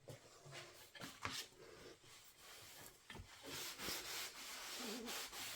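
Faint rubbing as shimmer-paint splatter is wiped up from a glass craft mat, with a few light knocks in the first couple of seconds, then steadier rubbing in the second half.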